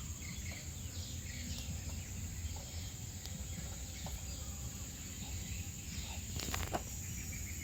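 Outdoor ambience: a steady high insect drone with faint bird chirps over a low rumble, and a brief knock about six and a half seconds in.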